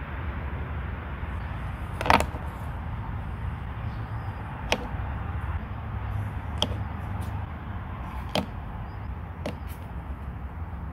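Plastic interlocking building blocks clicking and knocking as they are set onto a stack, about six sharp clicks spread out, the loudest about two seconds in, over a steady low background rumble.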